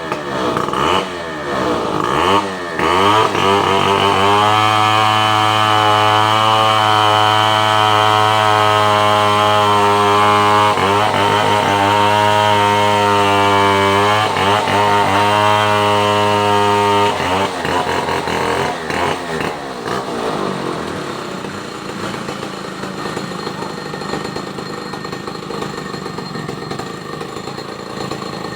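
A small engine revving up and down, then held at a steady high speed for about thirteen seconds with a brief dip in the middle, before dropping back to a lower, quieter run.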